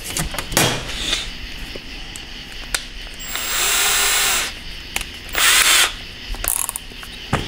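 Handheld power drill with an 1/8-inch bit running in two short spurts, the first about a second long and the second shorter, drilling a hole through an aluminium 4L60 transmission valve body. A few light clicks of handling come in between.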